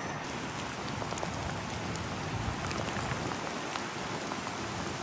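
Steady rain falling during a coastal storm, with many single drops ticking close to the microphone.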